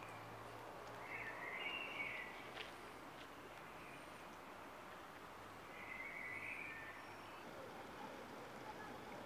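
Faint, steady outdoor background noise with a bird calling twice, about a second in and again around six seconds in.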